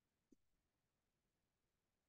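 Near silence: faint room tone, with a single faint click about a third of a second in.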